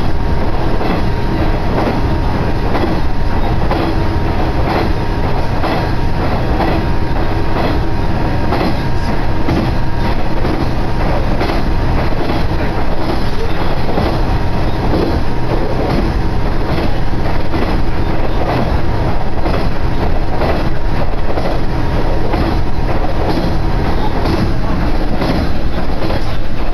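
KiHa 110 series diesel railcar under way: a steady, loud mix of engine hum and wheel-on-rail rolling noise, with wheels clicking over the rail joints.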